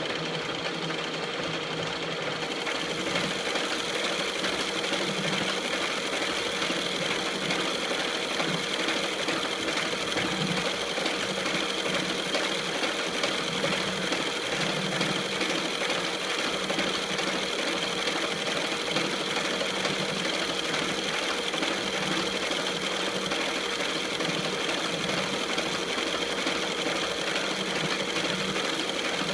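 Metal lathe running steadily, its motor and gears giving a continuous mechanical hum with a steady whine. About two and a half seconds in, the sound gets brighter and slightly louder and then holds steady.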